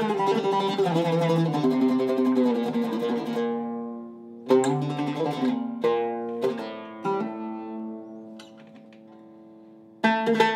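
Oud with a cedar top and African rosewood back, played solo: a run of quick plucked notes fades out over the first few seconds. Then a few single notes are left to ring and die away, until a loud strike about ten seconds in starts quick playing again.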